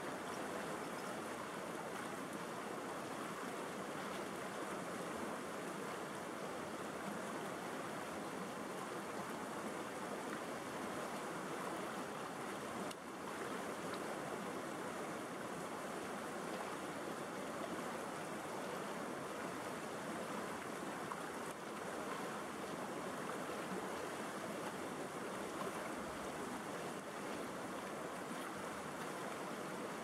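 River rapids: a steady, even rush of water tumbling over and around rocks.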